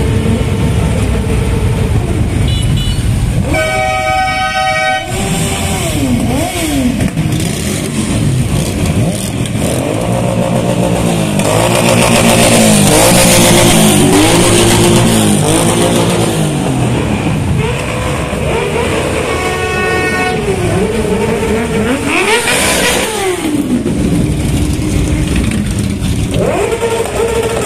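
A procession of motorcycles riding slowly past one after another, their engines rising and falling in pitch as riders blip the throttle. A loud horn blast sounds about four seconds in, and another, fainter one comes around twenty seconds in.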